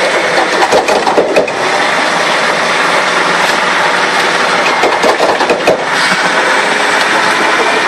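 Heavy wheeled machine's engine running as it rolls on a shredded tyre, with irregular knocks and slaps from the torn tread hitting the ground.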